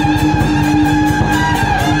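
Traditional temple-procession band music: a sustained, held melody line played over a fast, steady percussion beat.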